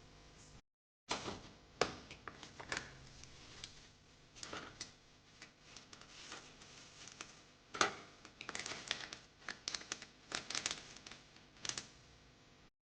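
Plastic packaging crinkling and rustling as food is handled, broken up by irregular light clicks and knocks.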